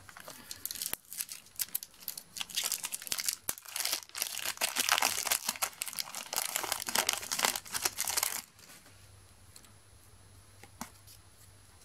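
A Match Attax trading-card pack's foil wrapper being crinkled and torn open by hand. The crackling grows busier and louder about four seconds in and stops suddenly at about eight and a half seconds.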